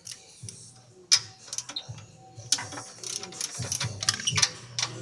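Irregular sharp metallic clicks and clinks of hand tools at work on the car, ratchet-like at times; the loudest click comes about a second in, and a quick cluster follows a couple of seconds later.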